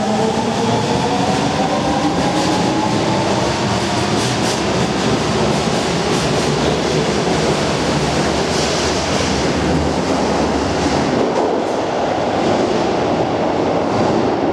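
Tanimachi Line subway train accelerating: its motor whine rises in pitch over the first second or two, then gives way to steady running noise of wheels on rail, with a few clicks of rail joints.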